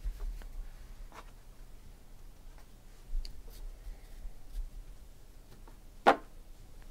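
Trading cards handled and set down onto stacks on a table: light taps and slides of card stock, with one sharper tap about six seconds in.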